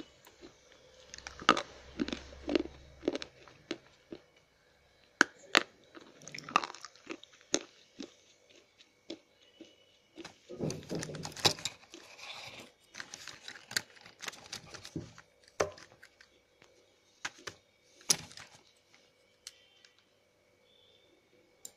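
Slate pencils being bitten and chewed: dry, sharp crunches in irregular clusters, thinning to a few scattered clicks near the end.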